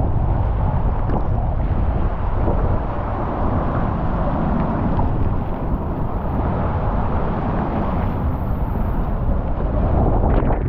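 Steady rushing and rumbling of a ride down a water slide, with water spraying and wind buffeting the microphone.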